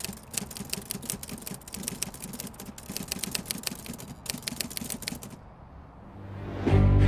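Typing sound effect: rapid key clicks, with a couple of short pauses, that stop about five seconds in. Near the end, music swells up with a deep low boom.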